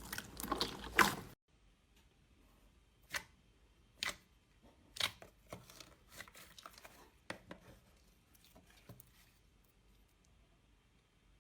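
Crunchy slime crackling densely as it is pressed, cutting off suddenly about a second and a half in. Then a few separate soft squishes and pops of slime being handled, about a second apart.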